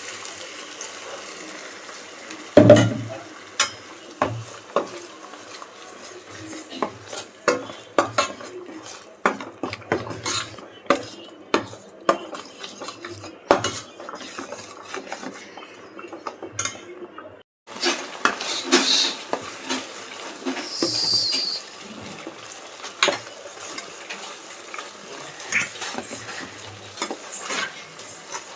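A spoon stirring ground masala paste in a frying pan, clinking and scraping against the pan again and again, over a light sizzle.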